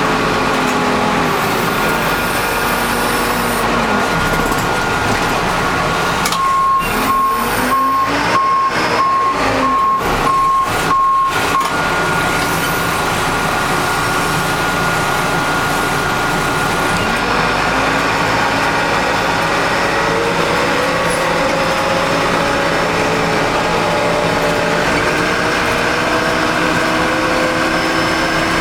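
Backhoe's diesel engine running while pushing snow, its pitch rising and falling with the throttle. About six seconds in, its reversing alarm beeps steadily, about two beeps a second, for around five seconds as it backs up.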